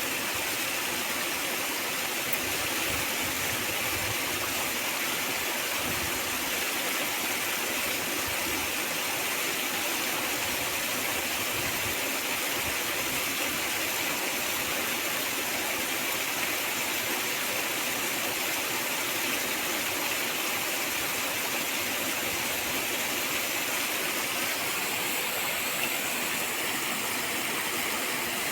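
Sea surf washing onto a beach, heard as a steady, even rush of water noise.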